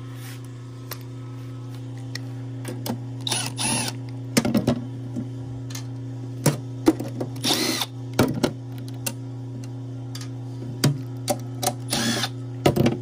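Cordless driver running in three short spurts, about three and a half, seven and a half and twelve seconds in, as it backs out the screws of the compressor's terminal cover, with scattered clicks of handling between. A steady low electrical hum sits underneath.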